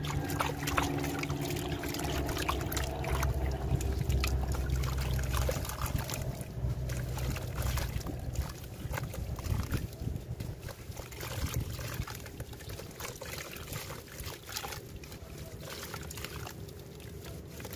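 A water-soaked, crumbly sandstone-like lump being squeezed and broken apart by hand. Wet grit crackles and trickles from the fist back into a bucket of water, over a low steady hum that fades after the first half.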